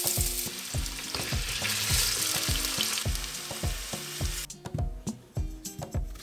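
Diced raw potatoes sizzling as they fry in hot oil in a frying pan. The sizzle cuts off suddenly about four and a half seconds in.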